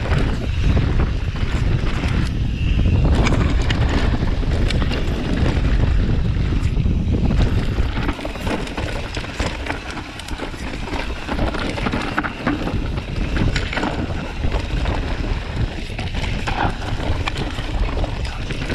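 Mountain bike descending a rough dirt and rock trail, heard close up from the bike: wind buffeting the microphone over the rumble of tyres on dirt and stones, with a constant patter of small knocks and rattles from the bike over the bumps.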